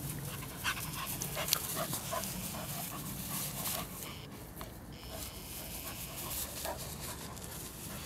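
Small dogs at rough play: a dog panting hard, with a few short high whimpers or yips, mostly in the first few seconds and once more near the end.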